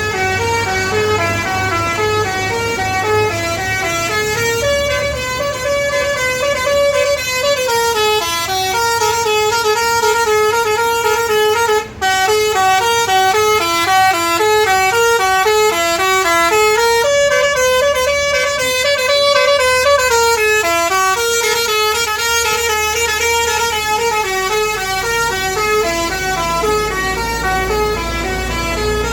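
A bus's telolet basuri musical horn playing a fast tune of short stepped notes, the same melodic phrase coming round again and again, over a low rumble.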